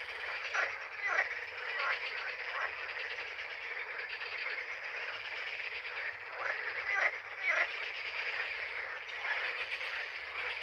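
A dense chorus of frogs croaking: a continuous pulsing din, with a few louder calls standing out above it now and then.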